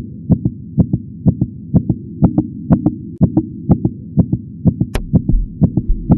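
Soundtrack of heartbeat-style double thumps, about two a second, over a steady low drone. A short sharp click comes about five seconds in, and a deep bass pulse joins from there.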